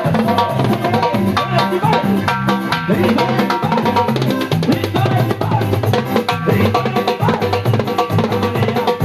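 A band playing live, with a drum kit keeping a steady beat over a moving bass line and sustained chords.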